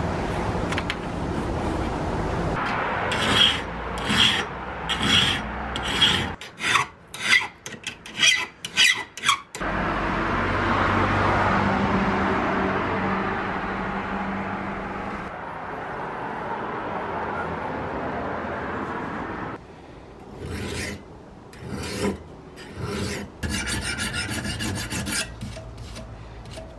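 A hand file rasping over rusty steel trap parts (the jaws and pan of an old Oneida Victor No. 1 trap) clamped in a vise. It runs in separate strokes that quicken to about two a second, then a long continuous stretch of rasping, then more strokes ending in a fast run of short scrubbing strokes.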